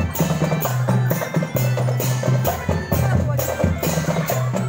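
Marching drum band playing a tune: drums and cymbal-like hits keep a steady beat under a melody and a changing bass line.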